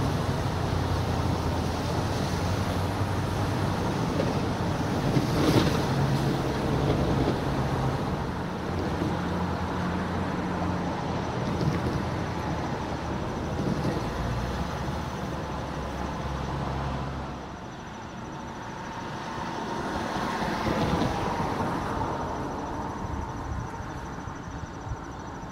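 A slow freight train rolling past: a diesel locomotive's engine running with a steady low drone over the rumble of freight cars on the rails. The engine drone drops away suddenly about two-thirds of the way through, leaving the quieter rolling of the cars.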